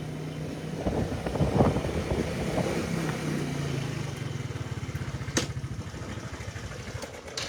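A motor vehicle's engine running nearby: a steady low hum with a pulsing rumble that swells about a second in and fades toward the end. A single sharp click comes about five and a half seconds in.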